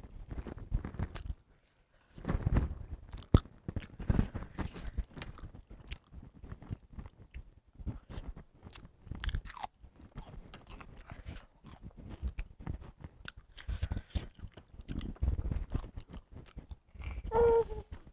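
Close-up chewing and crunching of food: an irregular run of crisp bites and chews. A brief high-pitched vocal sound comes near the end.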